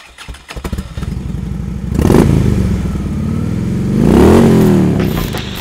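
A vehicle engine sputters into life, settles into a steady run, gets louder about two seconds in, and is revved once about four seconds in, its pitch rising and then falling.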